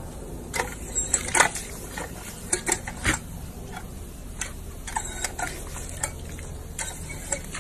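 A German Shepherd drinking from a paw-pedal step-on water fountain: a steady hiss of spraying water with irregular sharp splashes and clicks as it presses the pedal and laps at the jet.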